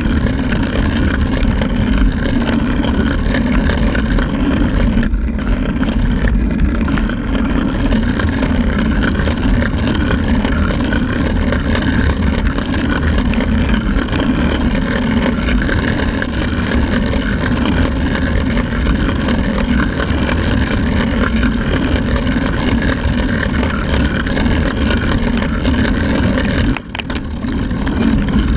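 Wind rushing over the microphone of a handlebar-mounted camera on a moving road bike: a loud, steady rush that dips briefly near the end.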